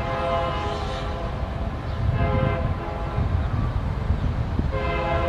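An approaching train's locomotive horn sounding a multi-note chord in long blasts over a low rumble. The blasts ease in the middle and a stronger blast begins near the end.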